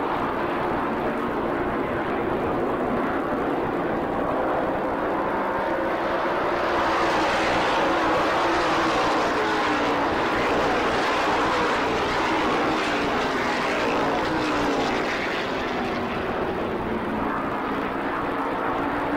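NASCAR Modified race cars' V8 engines running at speed on the track, a steady drone of several cars together. It grows louder and brighter about six seconds in as the pack passes close, then eases back near the end.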